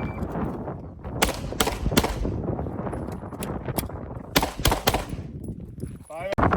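Pistol shots fired in quick strings: three shots a few tenths of a second apart about a second in, and another fast three about four and a half seconds in, with fainter shots between.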